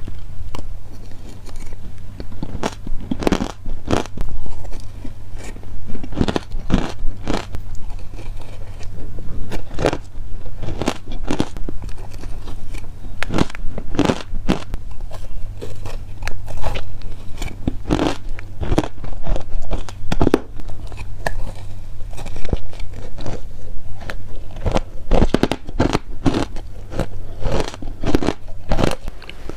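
Ice being bitten and crunched close to the microphone, one sharp crunch after another at an irregular pace, over a steady low hum.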